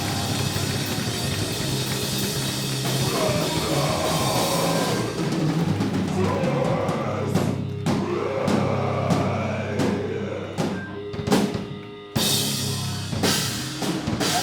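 Live heavy rock band of electric guitars, bass and drum kit playing loud distorted music. About five seconds in it breaks into a run of separate hits with ringing chords between them, like the accented ending of a song.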